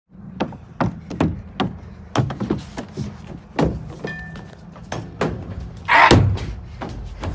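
Footsteps running and stomping on a metal mesh playground walkway: a string of sharp clanks and thuds about two a second, with one louder, longer thud about six seconds in.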